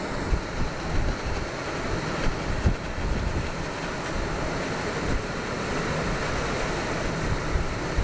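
Flooded river rushing in fast brown rapids, a steady dense hiss of water, with wind buffeting the microphone in irregular low thumps.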